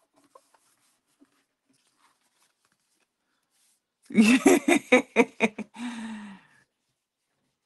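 A woman laughing: a quick run of short laughs about four seconds in, ending in one drawn-out note. Before it, only a few faint paper clicks.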